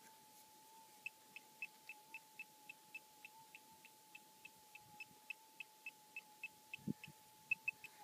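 Gold detector's faint steady threshold hum, with a handheld pinpointer beeping in short, even pips about four times a second as it is held over a target in the hole. A soft knock near the end.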